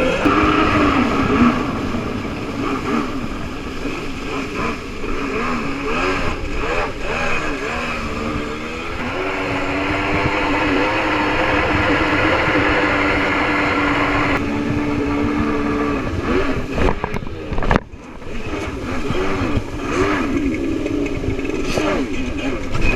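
Kawasaki 650SX jet ski's two-stroke twin engine running under way, its pitch wavering with the throttle, holding steady for several seconds in the middle, then dropping off briefly about three quarters of the way through before picking up again.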